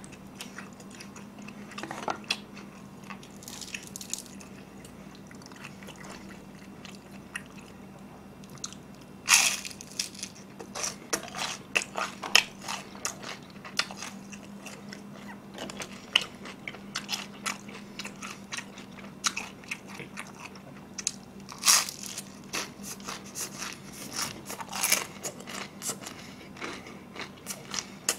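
Close-miked crunching and chewing of crispy fried pork in glutinous rice batter (chapssal tangsuyuk): a run of crisp bites and chews, the loudest about nine and twenty-two seconds in, over a steady low hum.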